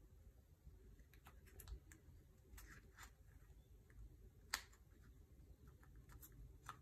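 Near silence with faint, scattered clicks and rustles of die-cut paper petals being handled and pressed together, with one sharper click about four and a half seconds in.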